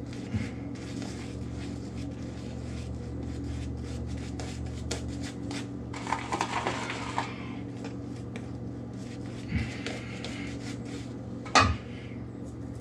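Semogue Owners Club boar-bristle shaving brush working soap lather over a stubbled face: a soft scratchy rubbing with many small clicks, over a steady low hum. A sharper knock comes near the end.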